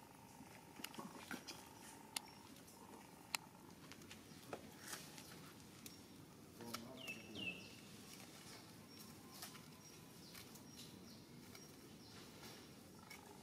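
Near silence: faint ambient background with scattered soft clicks and ticks, and one brief high two-note chirp about seven seconds in.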